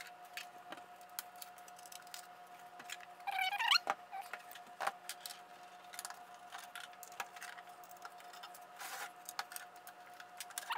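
Small metallic clicks and ticks of a hex key working the screws of a sheet-metal instrument case, with handling knocks as the case is shifted on a wooden bench. A brief squeak about three and a half seconds in.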